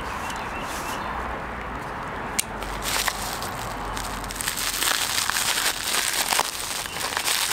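Bubble-wrap packaging crinkling and crackling as hands handle and unwrap it, the crinkling getting busier in the second half.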